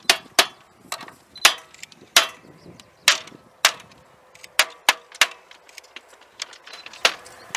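Sharp, irregular knocks, about ten of them, as a hand-held object strikes the bamboo slats and wooden frame of a bamboo train (norry) platform.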